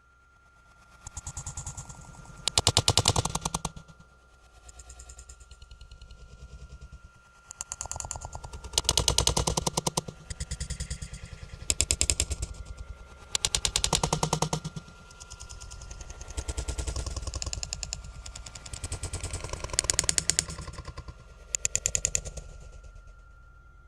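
Rapid rattling clatter in repeated bursts of a second or more, some loud and some soft, like something shaking and knocking in quick succession. A faint steady high tone runs underneath.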